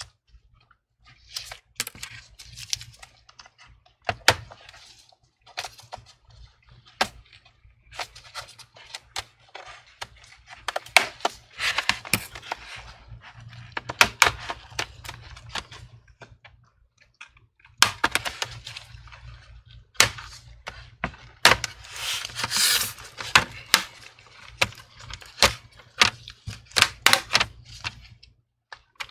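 Plastic clips of a laptop's bottom cover snapping loose one after another as a plastic pick and spudger pry around the edge: irregular sharp clicks and snaps, with scraping and handling rustle between them.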